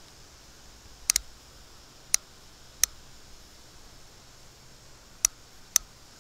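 Ruger Single Six revolver's cylinder turned by hand through the open loading gate while .22 Magnum cartridges are loaded, giving about six sharp metallic clicks at uneven intervals, two of them in quick succession about a second in.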